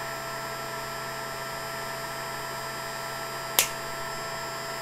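Steady electrical hum with a few fixed tones, and a single sharp click about three and a half seconds in.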